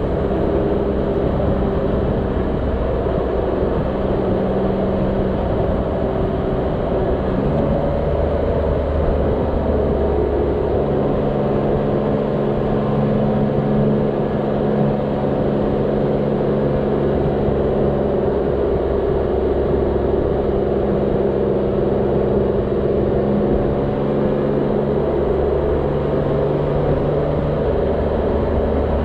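Motorcycle engine running at road speed under wind and road noise, its pitch shifting in steps a few times as it changes speed.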